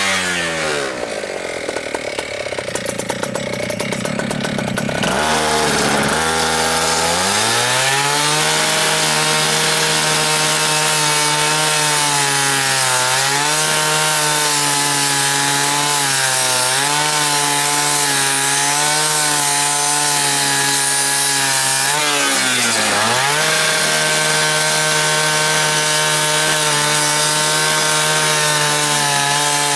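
Gas-powered fire saw cutting through a door's steel carriage bolts. Its engine drops to a low speed for a few seconds near the start, revs back up and runs at high speed, its pitch dipping briefly three times as the blade bites into the bolts.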